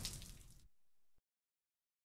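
Rain on pavement fading out within the first second, then silence.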